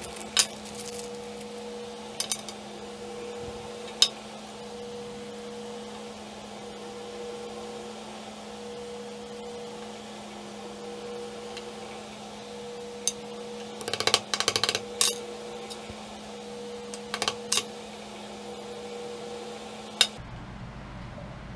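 Sharp clicks and clinks of small metal parts being handled: a KitchenAid stand mixer's worm-gear housing and gear knocking against a metal workbench, scattered through with a busy cluster about two thirds in. Under them runs a steady low hum.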